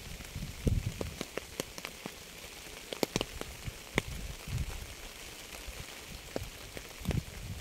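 Rain falling: a steady hiss with many separate drops landing close by as sharp, irregular ticks, and a few dull low thuds.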